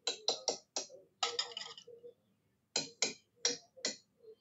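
Wire whisk beating egg and milk in a plastic bowl: a quick run of strokes and scrapes against the bowl, a short pause, then four more strokes.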